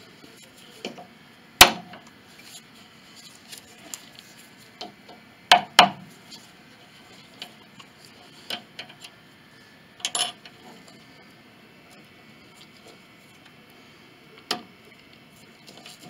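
Sharp metallic clicks and taps of a steel punch working against a castle nut on a grand piano's cast-iron plate, the nut being eased loose. About seven separate clicks, the loudest about a second and a half in and a close pair near the middle.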